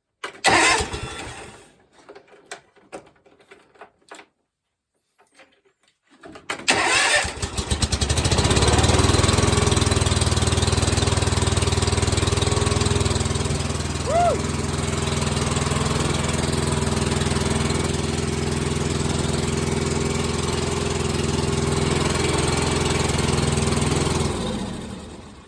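John Deere X300 riding mower engine: a short burst of starter cranking, then about six seconds in it cranks again, catches and runs at a steady speed before being shut off near the end. It is starting and running now that the failed ECU, the cause of its no-spark fault, has been replaced.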